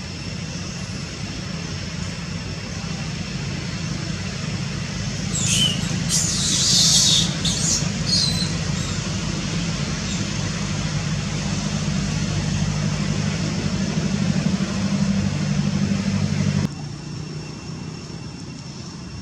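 A steady low engine drone from a motor vehicle or aircraft, with a brief shrill, high-pitched burst about six seconds in. The drone drops away suddenly near the end.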